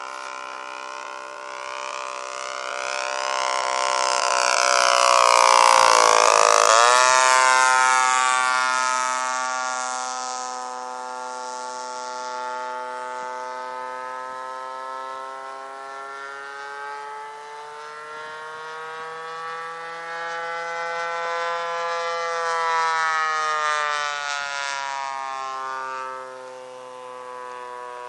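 Radio-controlled model airplane flying overhead, its motor droning. The drone grows loudest about five to six seconds in as the plane passes close, then drops sharply in pitch as it flies away, and afterwards wavers gently in pitch as the plane circles.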